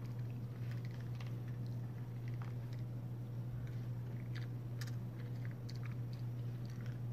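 A person chewing a cookie with pretzel pieces and chocolate chips close to the microphone: irregular small crunches and wet mouth clicks, over a steady low hum.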